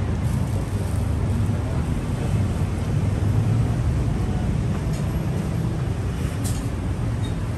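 Road traffic on a city street: a steady low rumble of engines and tyres.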